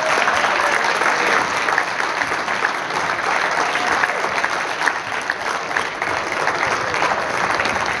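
Audience applauding: steady, dense clapping.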